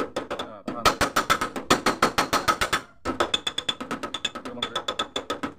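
Rapid light taps of a hand tool on the sheet-steel door of a Mitsubishi L300 van, about six a second with a short metallic ring, knocking out a dent without breaking the paint. The tapping stops briefly about three seconds in, then starts again.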